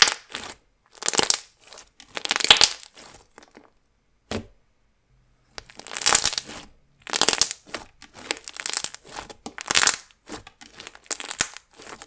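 Hands squeezing and kneading a thick, glossy milk-texture slime, trapped air popping and squelching out in bursts about once a second with short silent gaps between.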